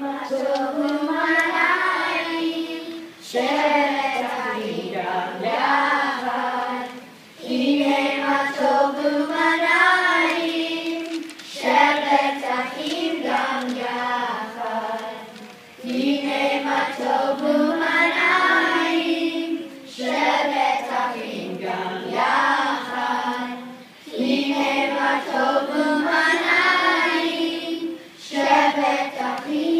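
Children's choir singing in unison without accompaniment, in phrases of about four seconds with short breaks between them.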